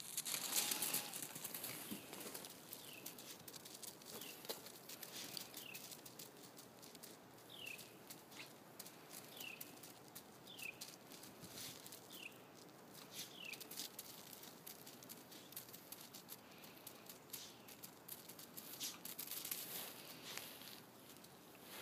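Norwegian elkhound biting into and eating snow: soft, irregular crunches of snow, strongest about the first second. A bird gives a short falling chirp about eight times, a second or so apart, over the first half.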